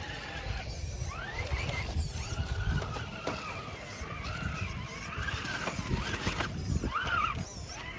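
Scale RC rock crawler's electric motor and gearbox whining in short bursts of throttle, the pitch rising and falling as the rig crawls.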